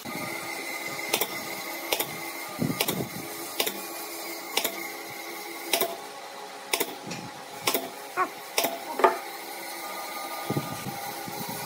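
Pneumatic nail gun firing about nine times, roughly one shot a second, driving nails through a wooden cap into curved wooden slats.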